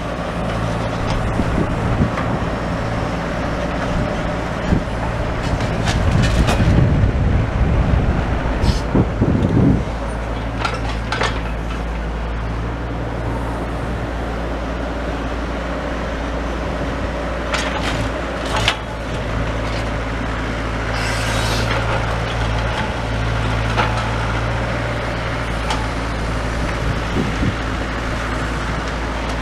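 Small digger's engine running steadily, with a stretch of clattering and knocking from about six to ten seconds in and a few single knocks later, as it picks up and drops pieces of wood and rubble.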